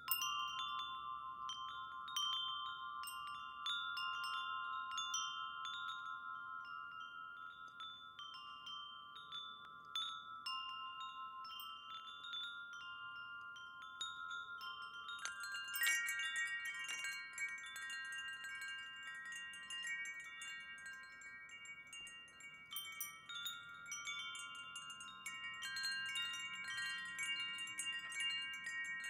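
Chimes ringing: many overlapping struck notes that ring on, over a few held tones. About halfway through, a louder strike brings in more and higher notes with a bright, high tinkling.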